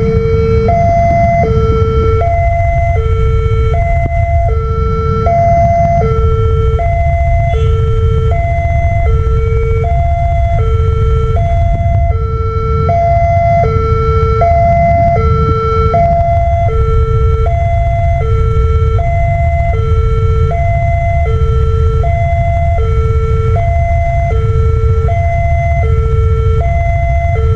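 Railway level-crossing warning siren from a pole-mounted horn loudspeaker, sounding a steady two-tone high–low alarm that alternates about every three-quarters of a second, warning that a train is approaching and the barriers are down. A low rumble runs underneath.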